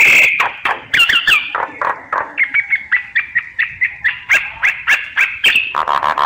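Decoy myna singing a varied stream of harsh squawks and clicks, then a run of short, quickly repeated whistled notes about three a second, ending in a louder harsh squawk.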